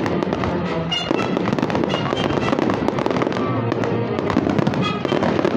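Fireworks going off, a dense rapid crackle of many small pops with no break.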